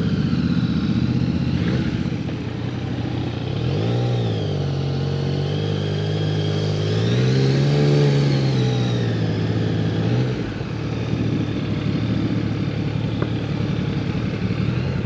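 Yamaha Niken's three-cylinder engine running at low speed as the bike creeps along, its revs swelling briefly about four seconds in and again, longer and higher, from about seven to ten seconds in before settling back.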